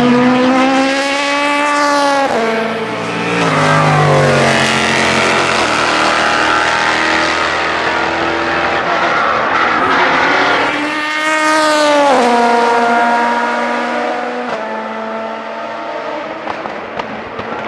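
Prototype race cars passing at speed one after another, each engine note rising as it approaches and dropping sharply as it goes by, about two seconds in and again about twelve seconds in. Between the passes, engine notes fall in steps as a car slows.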